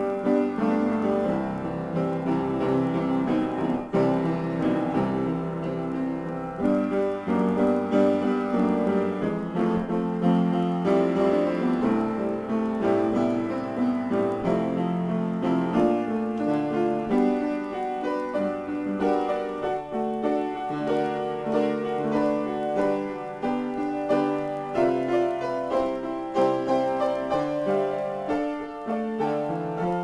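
Solo piano improvisation, a continuous stream of chords and melodic notes.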